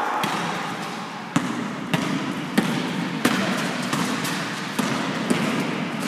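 A basketball dribbled on an indoor court floor, with bounces about every two-thirds of a second.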